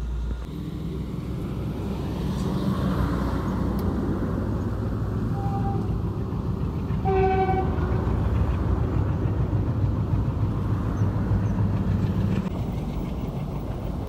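A vehicle runs with a steady low rumble on the road. A horn gives a short beep about five seconds in and a second, fuller honk about seven seconds in. The rumble eases near the end.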